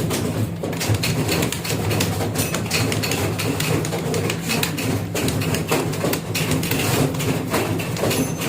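Fast typing on a computer keyboard: a dense, rapid run of key clicks over a steady low hum.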